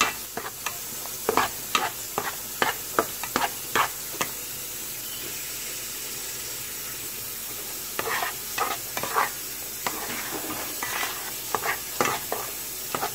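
Flat metal spatula scraping and stirring thick semolina halwa in a metal pan, about two strokes a second, over a steady sizzle as the added sugar melts in. The strokes pause for about four seconds in the middle, leaving only the sizzle, then start again.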